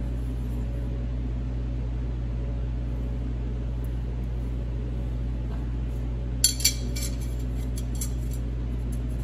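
Two quick metallic clinks a quarter second apart about two-thirds of the way in, then a few fainter ticks, as a stamped snowmobile clutch ring gear is handled and knocks against metal. A steady low hum runs underneath.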